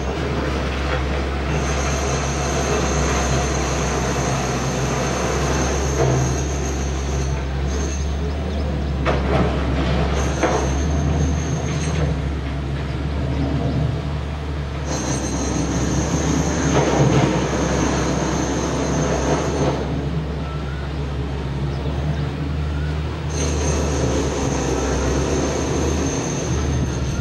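Boeing 777F freighter's twin GE90 turbofans at takeoff thrust, a steady low jet roar as the aircraft climbs away after liftoff.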